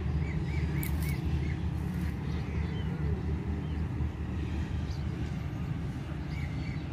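Low, steady rumble of a passenger train at the station. Over it, a bird gives four quick, arching chirps in the first second or so, and two more near the end.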